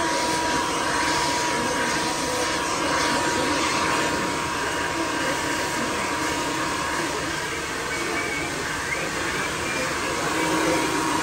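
Handheld hair dryer blowing steadily, with a faint steady whine.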